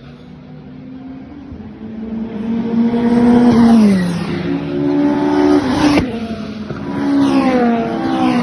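Modified Ford race car engines running loud, with two sharp drops in pitch, one about four seconds in and one near the end, and a single sharp crack about six seconds in.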